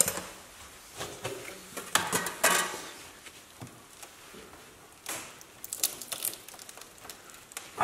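Irregular crackling, scraping and clicking at the seam of a 1987 Porsche 911 Carrera 3.2's front fender as it is worked loose by hand. Two busier spells of crackle come about two seconds in and again around five to six seconds in.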